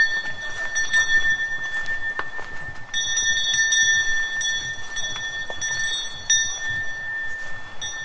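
A cowbell on a cow's neck clanking at irregular intervals, with a high ringing tone that carries on between strokes.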